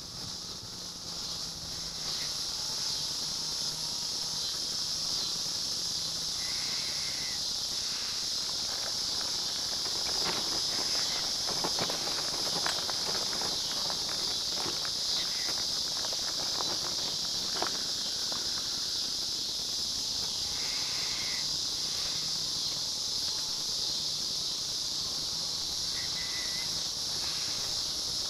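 A steady, high-pitched insect chorus that does not let up. Between about 10 and 18 seconds in, a run of clicks and rattles comes from the wheelchair's wheels rolling over rough pavement, and a low hum comes and goes.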